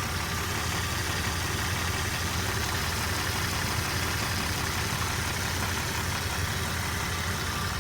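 Jeep Cherokee 4.0-litre straight-six idling steadily with a constant tick from the engine. The owner cannot tell whether it is lifter tick, piston slap or rod knock.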